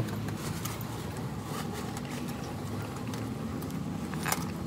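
Light clicks of the plastic valve cover and its bolts being handled on the engine head, with one sharper click about four seconds in, over a steady hum of distant traffic.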